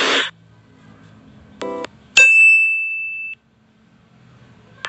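Edited-in sound effects: a short buzzy beep just before two seconds in, then a bright bell-like ding that rings for about a second and stops abruptly. A burst of hiss cuts off right at the start.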